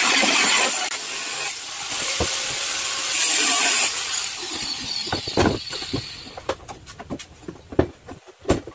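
Angle grinder cutting through the moulded plastic body of a children's ride-on toy car, a loud hissing grind that stops about four seconds in, its whine falling as the disc spins down. Then scattered knocks and clatter of the hollow plastic body pieces being pulled apart.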